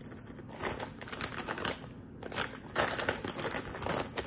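A plastic tortilla chip bag crinkling as it is handled: a run of sharp crackles that gets busier about two seconds in.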